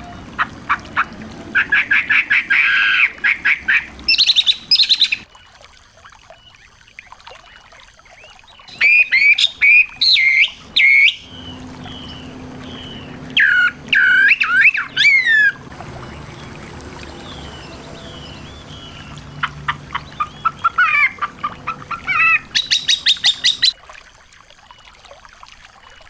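Small songbirds singing in four bouts of fast, high chirps and trills, each a few seconds long, with pauses between.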